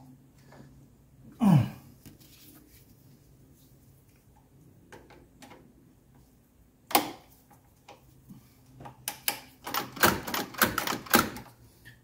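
Throttle linkage of a Mercedes OM617 diesel clicking as it is reconnected and worked by hand after lubrication: one sharp click about seven seconds in, then a quick run of loud clicks over the last three seconds. A brief sound falling in pitch comes about a second and a half in.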